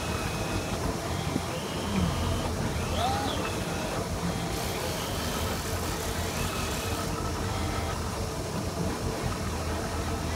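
Boat engine running steadily at trolling speed, a low hum with water and wind noise around it. A short stretch of added hiss comes about halfway through.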